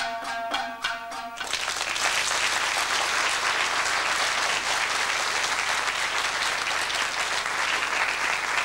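Plucked-string music with short ringing notes, cut off about a second and a half in by a large audience applauding steadily.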